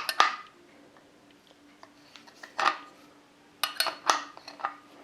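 Small metal spray-gun parts clicking and clinking as the nozzle is worked off by hand. There are a couple of sharp clicks at the start, one a little past halfway, and a quick run of them near the end.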